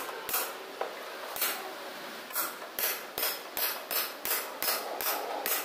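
Hammer driving a caulking chisel into the poured lead joint of a cast-iron soil pipe hub: quick taps, a few scattered strikes and then, from about halfway, a steady run of about three a second. The lead is being caulked tight so the joint will not leak.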